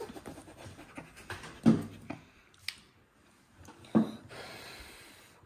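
A child puffing and panting, with two loud breathy 'hah' exhalations about two seconds apart while blowing out air from a mouthful of hot food. A short light click comes between them.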